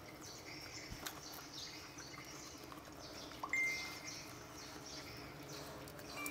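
Quiet background with faint bird chirps, a short whistle-like tone about three and a half seconds in, and a few soft clicks.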